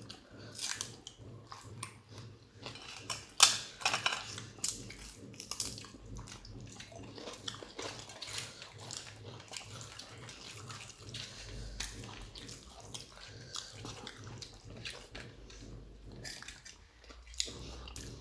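People eating a meal: chewing and crunching with scattered clicks and clatter, the sharpest crack about three and a half seconds in.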